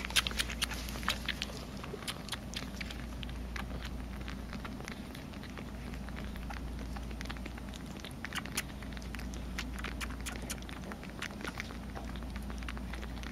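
Kittens suckling milk from pet nursing bottles: many small, irregular wet clicks and smacks of sucking and chewing on the rubber nipples, over a low steady hum.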